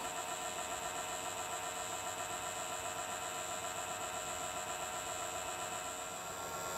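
Gauge 1 live steam locomotive standing at rest: a steady, even hiss with faint steady tones in it.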